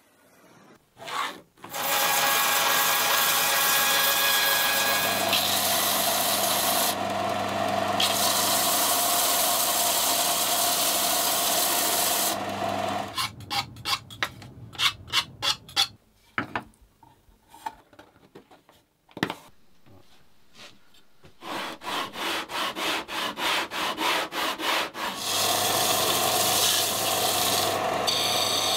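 Woodworking: a power tool runs with a steady hum for about eleven seconds, then a knife scrapes the edge of a thin plywood piece in rhythmic strokes. After a short lull with a few light knocks comes a quick run of rasping strokes, and near the end a disc sander grinds a thin wooden strip.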